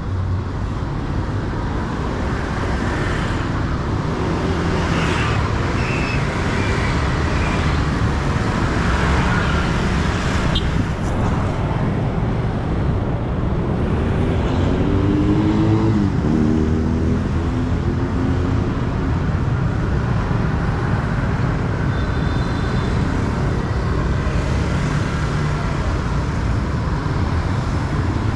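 Busy street traffic: cars and motor scooters pass close by in a steady rumble. About halfway through, one engine rises in pitch as it accelerates.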